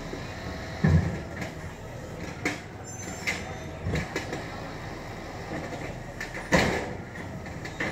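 Garbage truck engine running steadily, broken by loud thuds and clanks from the truck's loading work, the two heaviest about a second in and near the end.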